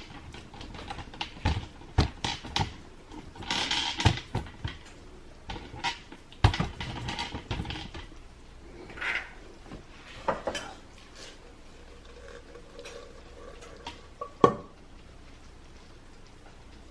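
Dishes and utensils clinking, knocking and scraping as pasta in Alfredo sauce is served onto plates. The knocks are irregular, with a few short scrapes, and the loudest knock comes near the end.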